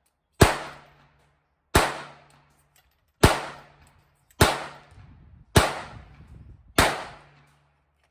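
Six handgun shots fired one at a time at an even pace, about one every 1.2 seconds, each followed by a short echoing tail.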